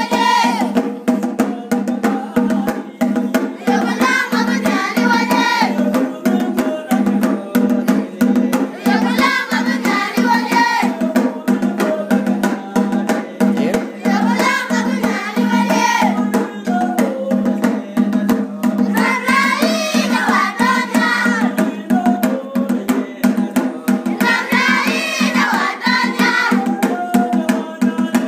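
A group of children singing a church song with rhythmic percussion, a higher sung phrase returning about every five seconds over a steady held lower part.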